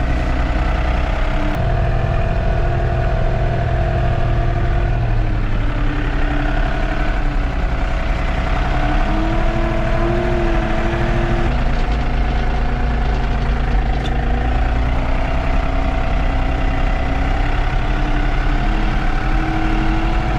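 Tractor engine running steadily as the tractor drives along, its pitch stepping up and down several times as speed and load change.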